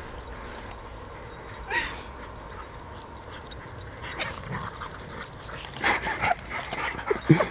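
Dogs yipping and whining as they play, with one short yelp about two seconds in and then busier, louder yips and cries toward the end.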